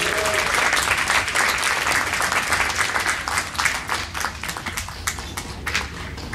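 Theatre audience applauding, a dense clapping that thins out and dies down gradually.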